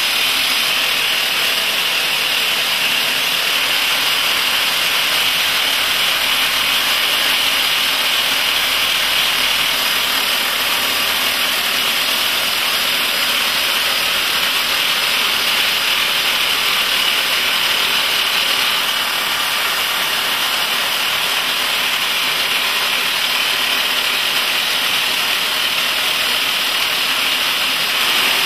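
Rock drills of a drilling jumbo percussion-drilling blast holes into a tunnel rock face, with two booms drilling at once. The noise is loud and steady and does not let up.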